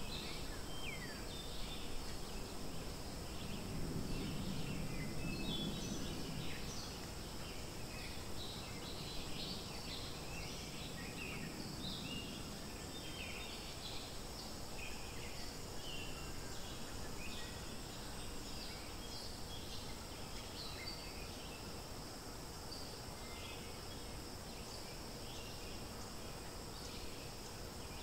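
Forest ambience: many short bird chirps scattered throughout over a steady high insect hum, with a low rumble swelling and fading a few seconds in.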